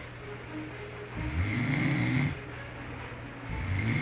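A man snoring in his sleep. There is a loud snore about a second in and another starting near the end, roughly two and a half seconds apart, with quieter breathing between.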